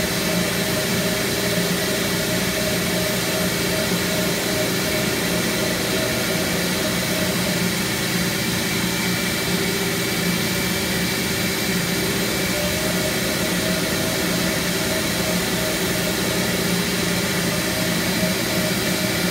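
Mytee portable carpet extractor's vacuum motors running steadily while a Trex rotary extraction wand spins and extracts on the carpet: an even rushing hum with a few constant tones that does not change.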